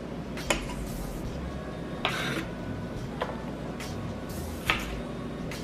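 Kitchen knife slicing an onion on a wooden cutting board: four separate knife strikes on the board, a second or so apart.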